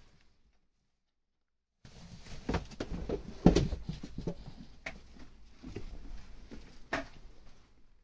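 Knocking and rustling in a sheep and goat pen: a run of irregular thumps and scuffs that begins after about two seconds of dead silence and is loudest around the middle, with a couple of sharper knocks later.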